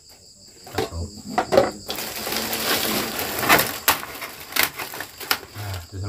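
Plastic wrapping crinkling and rustling in the hands, with several sharp crackles, for about three and a half seconds from about two seconds in.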